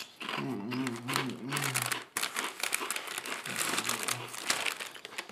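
Plastic snack bag crinkling and rustling as it is handled. A man's low voice murmurs for about the first two seconds.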